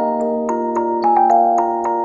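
Background music on mallet percussion such as glockenspiel or marimba, a gentle tune of struck notes at about four a second.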